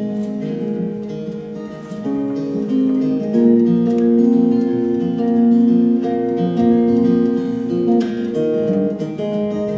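Acoustic guitar playing a song's instrumental introduction live, with long held notes over it, getting louder about three seconds in.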